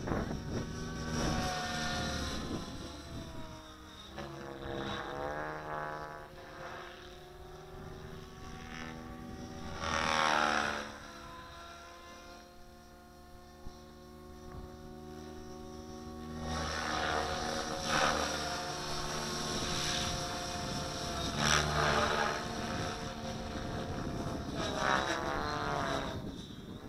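Align T-Rex 700E Pro DFC electric RC helicopter in flight, its rotor and motor whine sliding up and down in pitch as it manoeuvres and passes. It swells loudest about ten seconds in and again in the second half.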